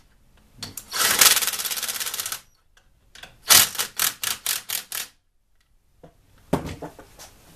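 Socket ratchet clicking as it turns the nut that holds the distributor on its stud. A fast run of clicks comes about a second in, then a slower series of separate clicks, and a few more near the end.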